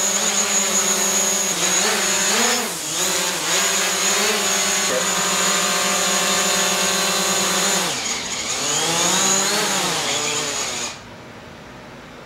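DJI Mavic Pro quadcopter hovering, its four propeller motors giving a steady whine whose pitch wavers briefly a couple of seconds in. About eight seconds in the motors wind down in falling glides and cut off just before eleven seconds as the drone is caught by hand and stopped.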